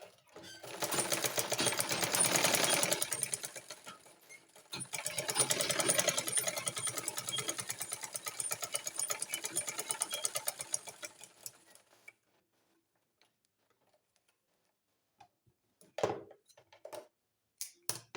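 Sewing machine stitching fabric at a fast, even rate in two runs with a short break between, test-stitching after its presser foot pressure has been adjusted. A few short sounds follow near the end.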